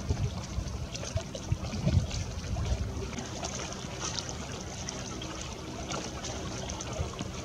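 Lake water lapping and trickling, with many small ticks and splashes over a steady low rumble.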